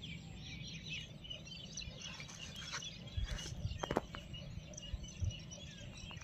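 Small birds chirping faintly and continually, with a few soft low thumps and clicks of handling noise in the middle.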